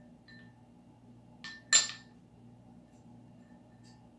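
A toddler's red plastic spoon knocking against a bowl: a couple of soft taps, then a sharper clink with a brief ring just under two seconds in, and a faint tap near the end.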